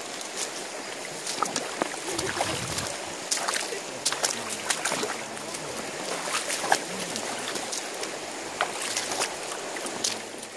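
Footsteps wading and splashing through a shallow, rocky stream, with irregular sharp splashes and stones knocking underfoot, over the steady rush of running water.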